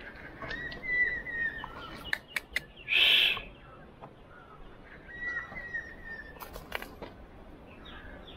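Wild forest birds calling: one bird repeats short series of quick notes several times, with a loud, harsh burst of sound about three seconds in and a few sharp clicks scattered through.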